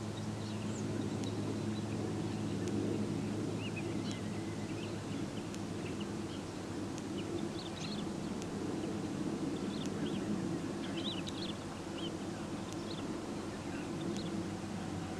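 Steady low engine hum, as of distant machinery or traffic, with scattered short, high bird chirps all through.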